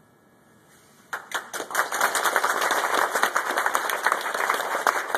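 Near silence, then a seated audience breaks into applause about a second in, swelling within a second to steady clapping.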